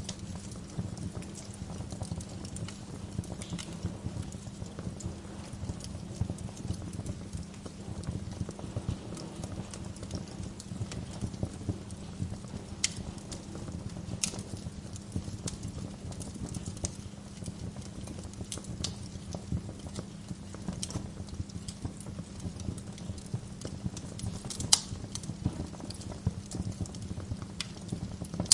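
Wood fire in a fireplace crackling steadily, with scattered sharp pops of the logs; the loudest pop comes near the end.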